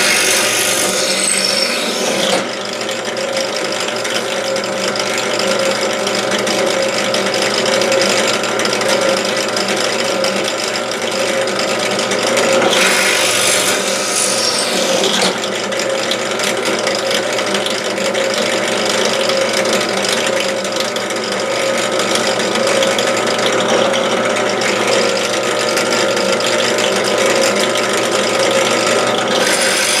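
Benchtop drill press running steadily, its motor giving a constant mechanical hum. Its bit bores into wood twice, adding a harsher, higher cutting sound for about two seconds at the start and again about thirteen seconds in.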